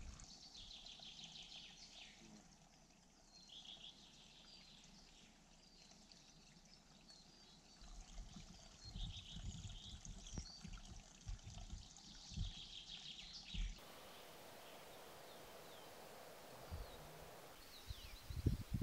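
Faint trickle of spring water running into a freshly dug, muddy pool, with small birds chirping in short repeated trills now and then. Some low rumbles come in the middle, and later the sound drops to a quieter forest background with a few thin chirps.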